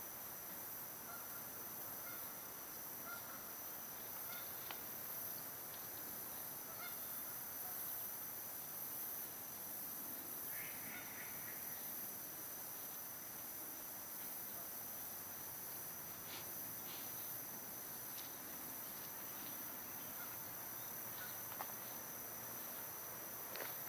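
Faint outdoor ambience under trees: a steady high hiss with a thin, steady high tone, a few faint clicks, and one brief pitched call lasting about a second, about ten and a half seconds in.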